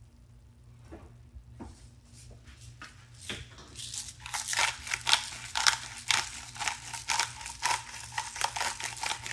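Pepper grinder being twisted over the food: after a few soft knocks, a run of rapid, irregular crunching strokes starts about three and a half seconds in and keeps going.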